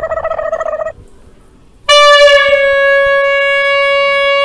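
Plastic toy horn blown in one long, loud, steady blast starting about two seconds in, after a short wavering tone at the start.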